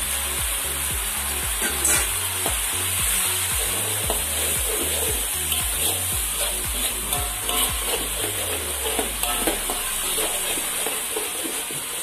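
Thick chili-tomato sauce with potato pieces sizzling in a wok, stirred and scraped with a flat metal spatula.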